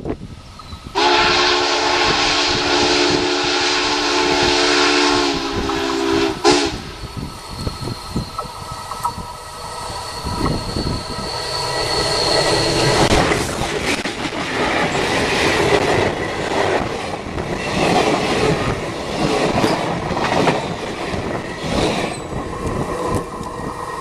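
Union Pacific 844 steam locomotive blowing its chime whistle: one long, steady blast starting about a second in and lasting about five seconds, ending with a short toot. Then the train goes by with rail clatter and wheel noise that builds louder.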